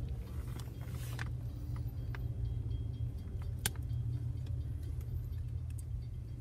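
Low, steady rumble of a car's engine idling, heard from inside the cabin, with a few short clicks.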